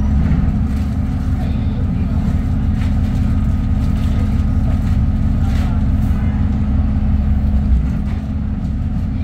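Diesel engine of an Alexander Dennis Enviro 400 double-decker bus on a Trident chassis idling while the bus stands in traffic: a steady low drone heard from inside the passenger saloon.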